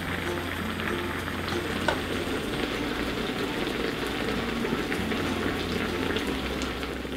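Food sizzling and crackling steadily as it fries in a pan, with a single short click about two seconds in.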